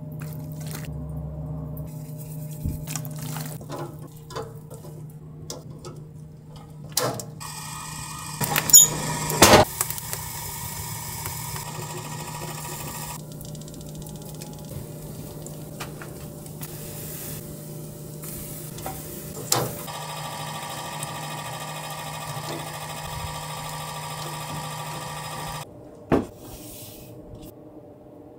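Small electric rotisserie motor humming steadily, with scattered clicks, knocks and food-handling sounds over it. There are louder clatters about nine and twenty seconds in. The hum cuts off about twenty-six seconds in.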